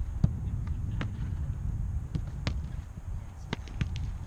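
Irregular sharp thuds and slaps, about seven in four seconds, from footballs being struck and caught in goalkeeper drills, over a steady low rumble.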